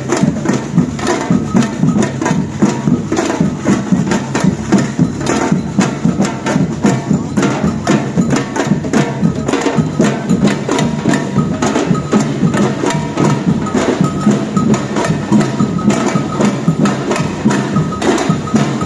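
Batucada drum band playing a dense, driving samba rhythm on drums and hand percussion, with sharp strikes many times a second.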